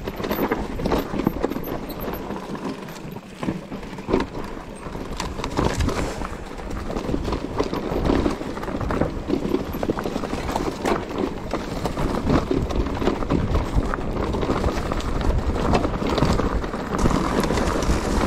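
Mountain bike rolling down a rough, rocky trail: tyres crunching over stones and the bike rattling, a dense irregular string of knocks over a steady low rumble.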